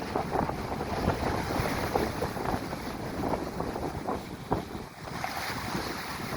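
Strong gale buffeting the microphone in irregular gusts, over the wash of high waves, with a brief lull about five seconds in.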